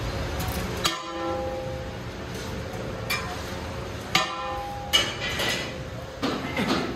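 A metal skimmer knocking against the rim of a large aluminium cooking pot, several sharp clanks that ring on briefly: one about a second in, two more around four and five seconds, and another near the end, over the steady rush of gas burners.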